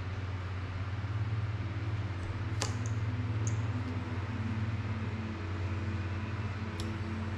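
Steady low room hum, with a sharp click about two and a half seconds in and another near the end as small tools and parts knock against a plastic drone frame during hand repair work.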